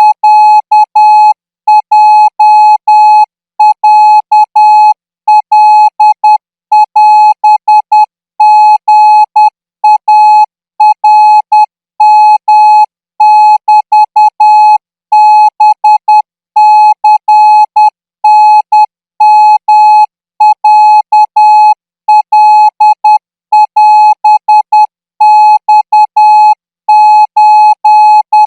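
Morse code practice tone keyed in short and long beeps (dots and dashes) at 14 words per minute, sending Thai-language Morse characters in groups separated by brief pauses. One steady beep pitch throughout.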